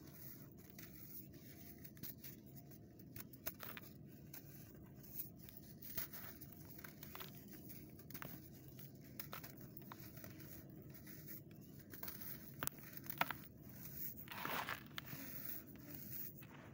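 Hands crumbling lumps of dry sandy clay and sifting the dusty sand through the fingers: faint, irregular crunching crackles, with a longer sandy hiss of pouring grains about 14 seconds in.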